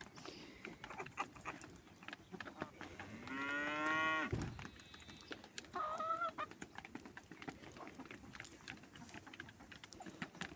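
Farm animals: a long, low call rising slightly in pitch about three seconds in, then a shorter, higher call around six seconds, over scattered light clicks and scratches.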